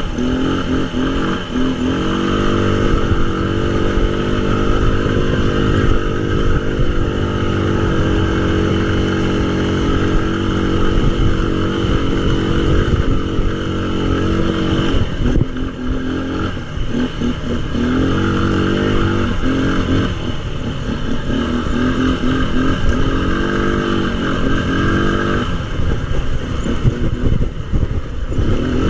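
Tao Tao 200cc quad ATV engine running under throttle. Its pitch rises and falls as it is revved and backed off over and over, with dips in revs about fifteen and twenty-five seconds in.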